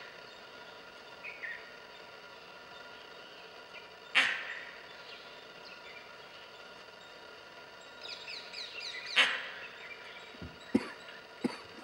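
Forest ambience: birds chirping over a steady background, with two short, sharp, loud sounds about four and nine seconds in, a quick run of chirps just before the second, and a couple of faint clicks near the end.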